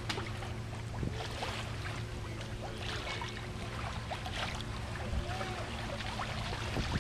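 Water washing and splashing along the hull of a sailboat under way, over a steady low hum.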